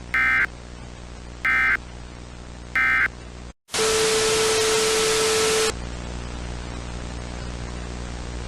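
Three short bursts of screeching EAS data tones, the end-of-message code that closes an emergency alert, each about a third of a second long. After a brief dead gap comes about two seconds of loud static with a steady low tone, which then drops to a quieter steady hiss and hum.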